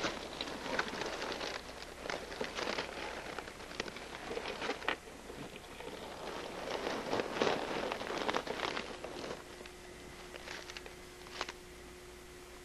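Dry leaf litter on a woodland floor rustling and crunching in irregular bursts, dying down after about nine seconds. A faint steady hum comes in for the last few seconds.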